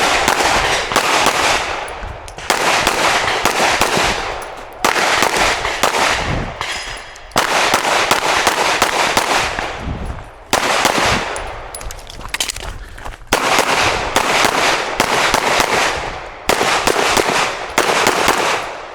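Rapid 9mm pistol fire from a Glock 47: quick strings of shots, broken by short pauses, during a timed USPSA stage run.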